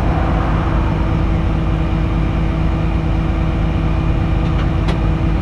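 Tow truck engine running steadily: a low drone with a constant whine over it.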